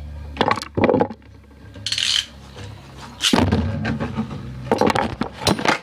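Beyblade spinning tops launched into a stadium and clashing: a string of sharp clacks and knocks over a low rumble, with a cluster of quick hits near the end.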